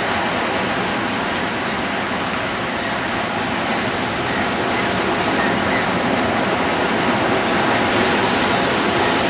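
Ocean surf breaking and washing around in shallow water, a steady loud rushing noise with no distinct breaks.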